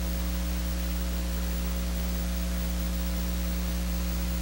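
Steady electrical mains hum with higher overtones over a constant hiss, unchanging throughout.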